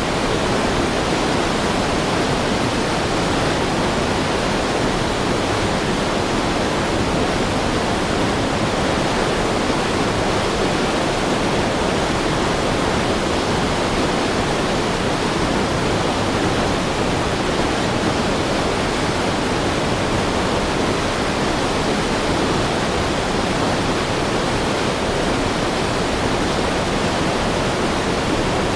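Heavy river water rushing in a steady, dense roar of flowing water, with no breaks or changes.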